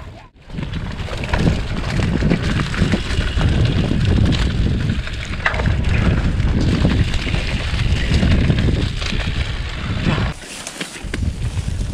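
Mountain bike rattling and clattering over a rough trail, with wind buffeting the microphone as a low rumble; the rumble drops away briefly near the end.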